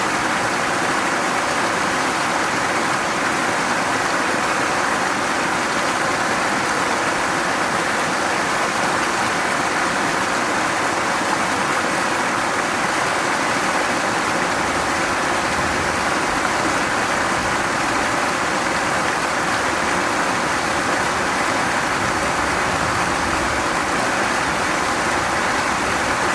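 Mountain stream flowing, a steady even rush of water that does not change.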